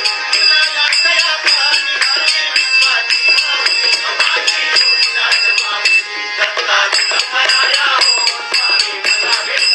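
Devotional bhajan music: singing over a fast, steady beat of jingling metal hand percussion.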